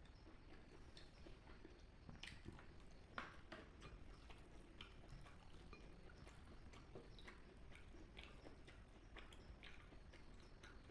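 Faint chewing: soft, irregular wet mouth clicks of someone eating rice.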